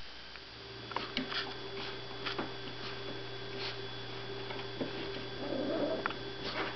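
Steady low electrical hum that sets in about half a second in, with faint scattered ticks and scratches over it.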